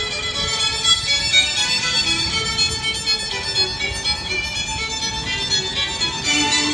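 Concerto grosso music: a violin carrying the melody over a string ensemble, playing continuously.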